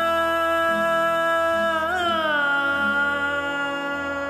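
A Bengali song: a voice holds one long note, bends it with a wavering slide about two seconds in and settles on a lower note. A soft accompaniment pulses gently underneath.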